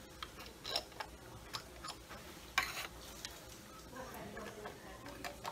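Plastic screw-top lids being twisted off staining jars and set down on a countertop: a scattering of small clicks and taps, with one longer rasp a little past halfway.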